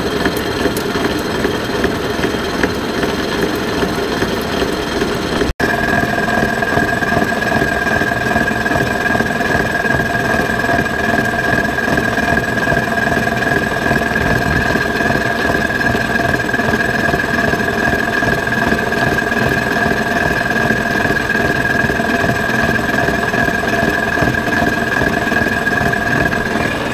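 Defiance horizontal boring mill running with its 5-inch face mill cutting an angle plate, throwing blue chips, in a steady machining whine. A brief break about five and a half seconds in is followed by a clearer, higher-pitched whine.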